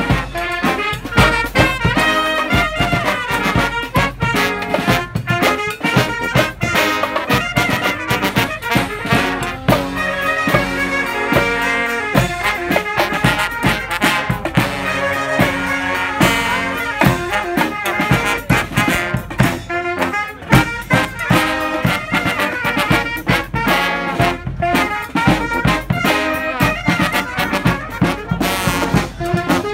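Brass street band playing an up-tempo tune live: trumpets and trombones in harmony over a steady beat.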